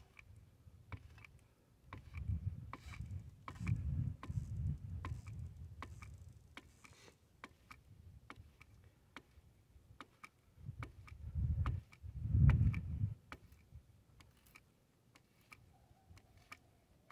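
Lever-action grease gun being pumped into the track adjuster's grease fitting to tension the rubber track, giving a run of sharp, irregular clicks. Two stretches of low rumble come in, one near the start and one about two-thirds through.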